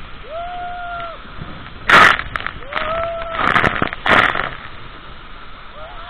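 Waterfall water pouring and splashing onto a handheld phone, with loud splash bursts hitting the microphone about two, three and a half and four seconds in. Two held, steady high tones sound in between, one near the start and one about halfway through.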